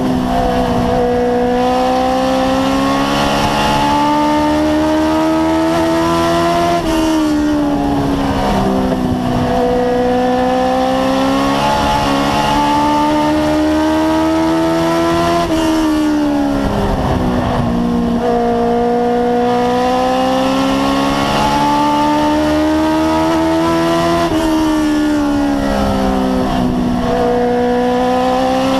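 Race car engine heard from inside the cockpit at speed on an oval. Its pitch climbs steadily along each straight, then drops sharply as the driver lifts for the turns, three times in this stretch.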